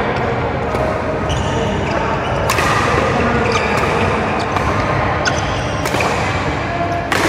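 Badminton rackets striking a shuttlecock back and forth in a doubles rally: sharp smacks about once a second, heard in a large hall over a steady background hum of noise.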